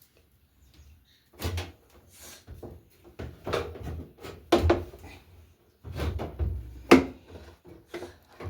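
Irregular knocks and clatter of the suspension rods and panels of a Defy top-loading washing machine being handled and unhooked, starting about a second and a half in, with the sharpest knock about seven seconds in.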